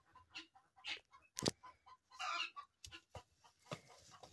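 Chickens clucking quietly in a series of short notes, with a sharp knock about a second and a half in.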